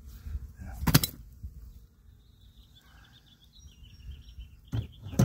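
Handling a pneumatic cart wheel with pliers and fitting it onto a garden cart's axle: one sharp clank about a second in, then two quick knocks near the end as the wheel goes on. A bird sings faintly in between.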